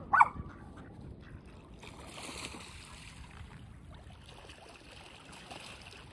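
A mallard gives one loud, short quack right at the start, then soft water splashing and lapping from about two seconds in.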